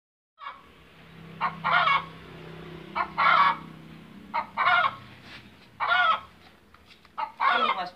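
Chicken calling over and over: a short note followed by a longer squawk, repeated about every second and a half.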